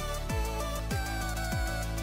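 Background electronic music with a steady kick-drum beat about every 0.6 seconds under a synth melody.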